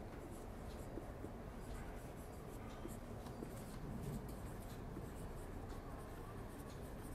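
Marker pen writing on a whiteboard: many short scratchy strokes in quick succession as letters are written.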